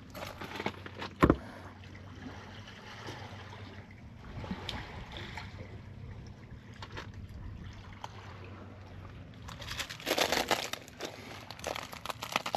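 Sea water sloshing among concrete tetrapods, with a low steady hum underneath. A single sharp knock comes about a second in, and a burst of crackling rustle near the end.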